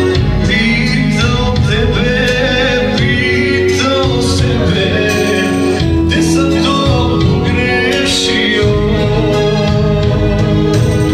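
A male vocalist singing live into a microphone over electronic keyboard accompaniment, both amplified through PA speakers.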